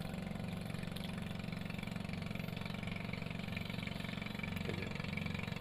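A small engine idling steadily: a low, even hum with a fast regular pulse.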